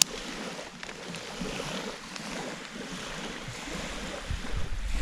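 Small waves lapping at a lakeshore, with a sharp click at the very start and wind buffeting the microphone with a rising low rumble over the last second or so.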